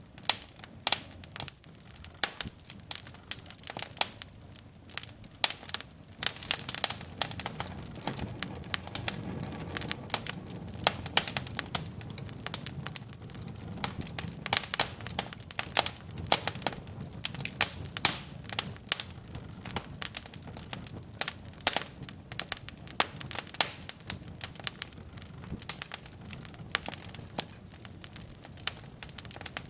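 Wood logs burning in a fireplace: dense, irregular crackling and popping over a low, steady rush of flame.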